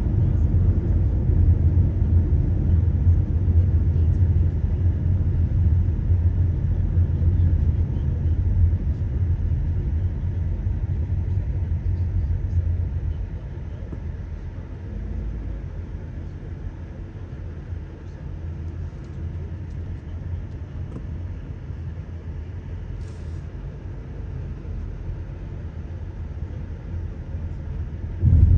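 Car driving, with a steady low road and engine rumble that drops noticeably in level about halfway through.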